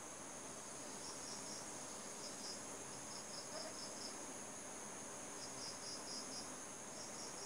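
Crickets chirping faintly, short trills of a few quick pulses repeating every second or so, over a steady high hiss.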